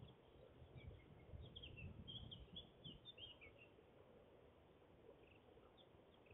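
Faint chirping of small birds in the background, a flurry of short high notes about one and a half to three and a half seconds in, over a low rumble that dies away after the first half.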